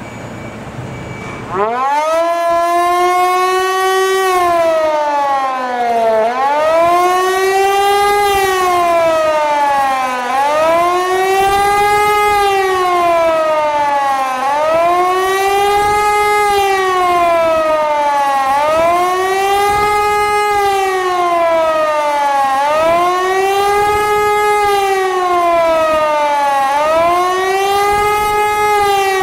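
Hörmann HLS 273 compressed-air civil-defence siren starting up about two seconds in, then wailing, its pitch rising and falling about every four seconds: the up-and-down warning tone of a siren test alarm.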